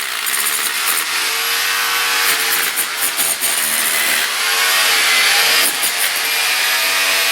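Rotary hammer chiselling into a wall to cut out a niche, running steadily under load with its motor pitch wavering slightly.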